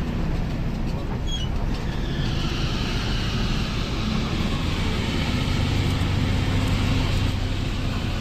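Mercedes-Benz bus diesel engine running steadily, a low drone that grows a little stronger about halfway through.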